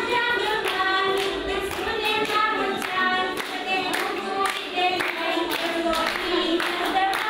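A group of voices singing a song while the audience claps along in a steady rhythm.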